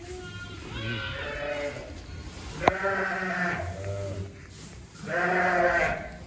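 Sheep bleating, three separate calls about two seconds apart, with a single sharp click just before the second call.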